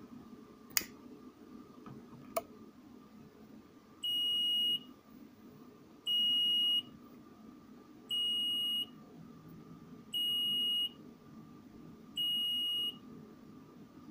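Battery management system's alarm buzzer beeping an over-temperature warning: five steady high beeps, each under a second long, one every two seconds, as the battery temperature reads critical. Two sharp clicks come just before the beeping starts.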